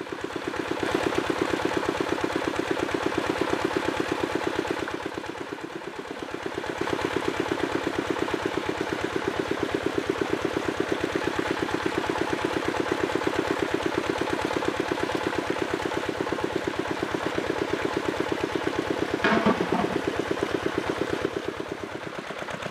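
Small engine of a water pump running steadily with a fast, even chugging beat while it pumps water through the outlet pipe into the catfish pond.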